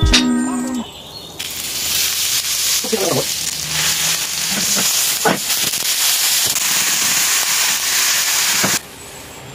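Raw ground-beef patty frying in melted butter in a hot skillet: a loud, steady sizzle that starts about a second and a half in and cuts off abruptly near the end. A short stretch of music plays before the sizzle begins.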